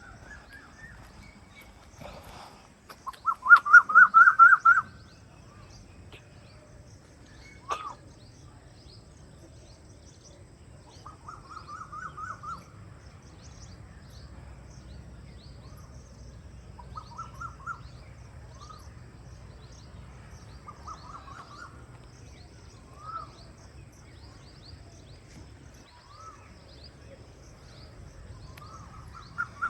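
A bird calling in quick runs of short rising notes, loudest in a burst a few seconds in and repeating in quieter runs every few seconds, over faint high chirping of other birds and a low steady rumble.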